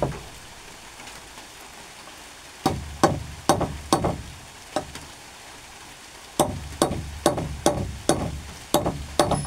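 Hammer driving a nail into a thick hardwood plank: sharp blows at about two a second, four in a first run, then a pause of about two seconds and a second run of about seven.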